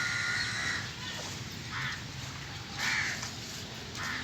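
Four short, harsh animal calls, the first right at the start and the longest, the others about a second apart.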